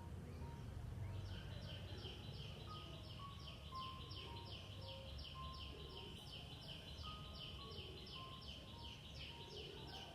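A high chirping call repeated about three to four times a second, breaking off just after the start and resuming about a second in. Occasional short whistled notes from other birds sound over a low outdoor rumble.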